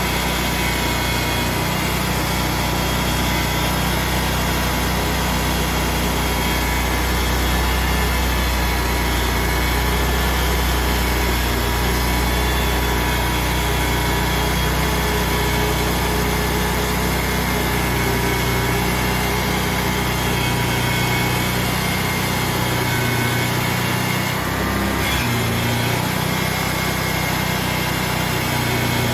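Sawmill engine running steadily under load as the band blade makes a cut through a white walnut log, with a brief dip in the sound about 24 seconds in.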